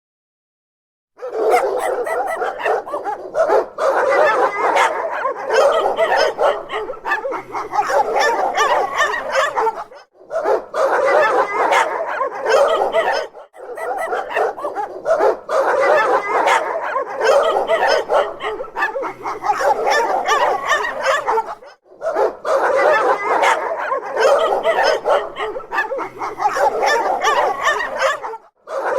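Dogs barking in a dense, continuous volley, starting about a second in and broken by a few brief pauses.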